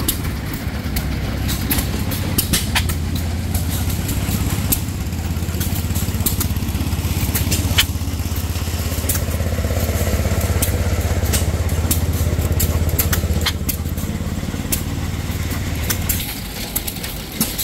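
Vintage hit-and-miss stationary gas engines running: a steady low engine drone with fast pulsing and sharp pops scattered through it. The drone grows louder toward the middle and eases off near the end.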